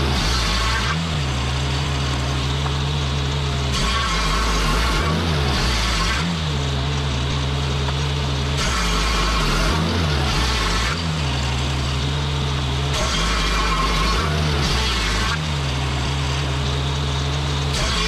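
Swing-blade portable sawmill running: its engine runs steadily with a low hum whose pitch dips and recovers several times. Stretches of a higher, brighter whine come and go every few seconds as the circular blade saws the log.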